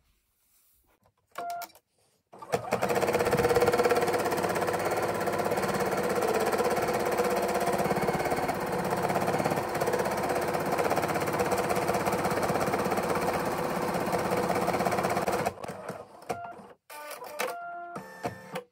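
Bernette B79 computerised embroidery machine stitching down a felt appliqué, running steadily at speed. It starts about two and a half seconds in and stops about fifteen seconds in, followed by a few short sounds with brief tones as the stitch-out finishes.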